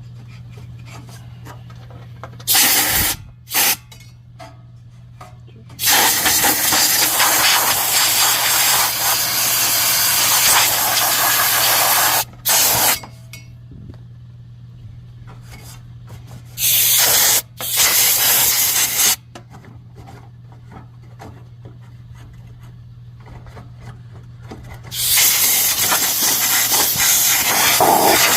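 Compressed-air blow gun hissing in repeated bursts, some short and two lasting several seconds, blowing dust out of a forced-air heater. A steady low hum runs underneath.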